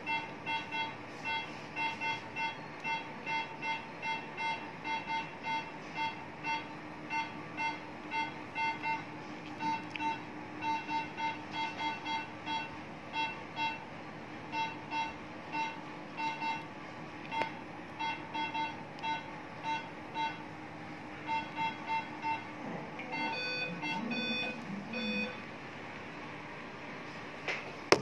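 Electronic beeping from a veterinary patient monitor: short, evenly pitched beeps about two to three a second with uneven spacing and a few brief pauses, stopping near the end, over a steady low hum. Two sharp clicks come at the very end.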